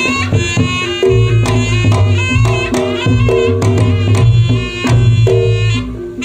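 Reyog Ponorogo gamelan accompaniment for the Bujang Ganong dance: fast kendang drumming under a piercing slompret shawm melody, with struck gong-chime tones ringing beneath.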